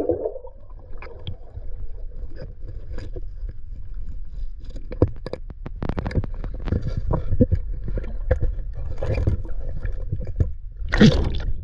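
Irregular scrapes and knocks over a steady low rumble as a fishing magnet is hauled in on its rope, with a louder burst of noise near the end.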